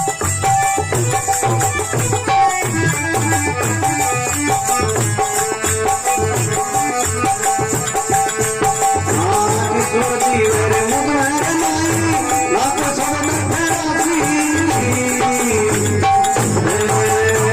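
Devotional folk bhajan music: a hand drum keeps a steady beat under jingling rattle-like percussion, and a gliding melody line comes in about halfway through.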